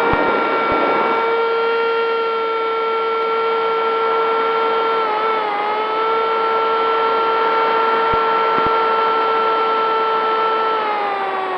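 Brushless electric motor and pusher propeller of a Bixler 2 RC plane running at steady throttle in flight: a steady high whine with rushing air noise. The pitch wavers briefly mid-way and drops near the end as the throttle eases.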